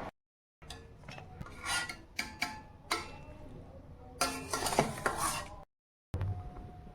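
Kitchen utensils clinking, scraping and clattering against dishes in irregular strikes, with the busiest clatter about four to five seconds in. The sound drops out to total silence twice, once just after the start and once near the end.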